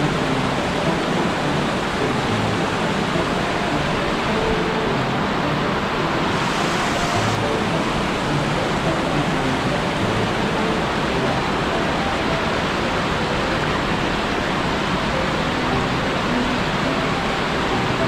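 Small mountain stream running over rocks and shallow riffles: a steady, even rush of water.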